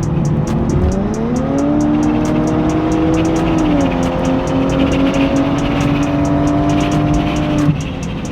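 Muffler-deleted Maserati engine pulling hard at speed: its pitch climbs about a second in, dips at a gearshift near the four-second mark, holds, then falls away as the throttle lifts near the end. Music with a steady beat plays along.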